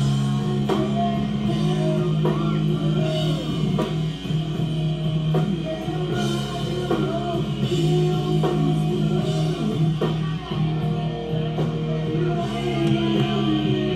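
Rock music: electric guitar, drums and a singing voice over held low chords.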